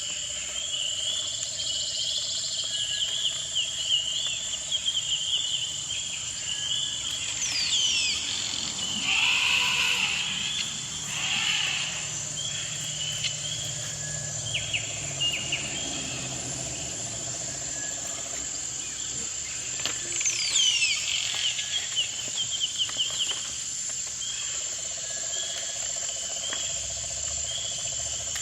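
Crickets chirping in steady repeated trills over a constant high whine. A few quick falling whistle-like calls cut in now and then, along with a few short bursts of rustling noise.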